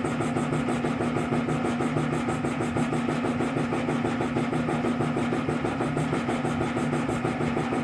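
A steady mechanical running sound: a constant low hum with a fast, even pulse, unchanged throughout.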